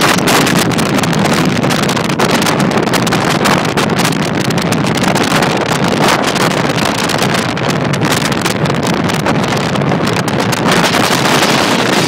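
Hurricane wind buffeting the microphone in a loud, continuous rush full of gusts, with heavy storm surf breaking below it.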